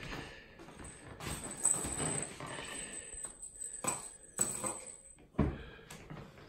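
Kittens playing on a wooden parquet floor: light scuffling with a few sharp knocks in the second half.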